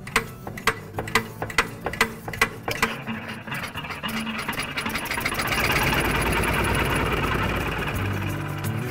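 International Harvester Model LB single-cylinder gasoline stationary engine being started by hand. It fires with sharp putts about twice a second at first, then catches about three seconds in and settles into a fast, steady mechanical clatter as it runs.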